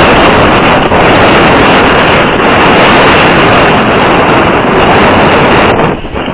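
Wind blowing hard across an outdoor microphone: a loud, steady rushing noise that drops off briefly near the end.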